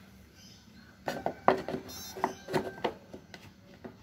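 Light clicks and knocks of a plastic canopy being set back onto a balsa model plane's fuselage and pressed down by hand. They come as a quick irregular run from about a second in to near the end.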